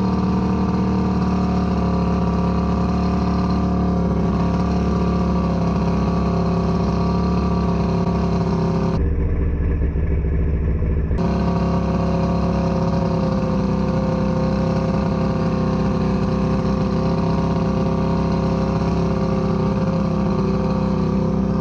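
1978 Johnson 115 hp V4 two-stroke outboard running steadily on the trailer, with one cylinder not firing properly. About nine seconds in, the sound turns muffled and low for about two seconds, then comes back as before.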